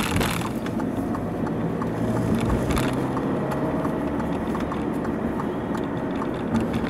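Inside the cabin of an Alfa Romeo Giulia 2.2 diesel on the move: a steady low engine and road drone, with a faint regular ticking throughout.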